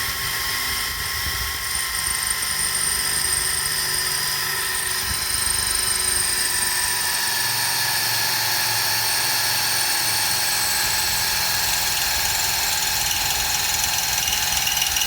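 Power drill running steadily under load as it drills a hole into the head of a bulkhead bolt, its whine sinking slowly in pitch as the bit bites.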